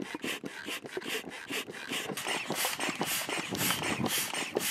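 Foot bellows pump being stepped on quickly to inflate an inflatable dinghy: a rapid, even run of air puffs and creaks, about three or four strokes a second.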